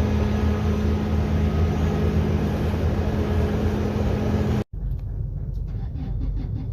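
A ferry's engine droning steadily, with a low, even hum. About four and a half seconds in it cuts off abruptly, giving way to a lower rumble with a few faint clicks.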